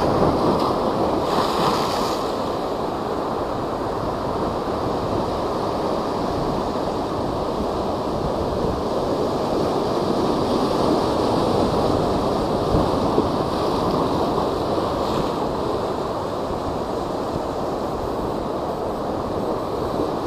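Typhoon-driven high surf churning and breaking, a dense, steady roar that swells somewhat about halfway through, with wind blowing across it.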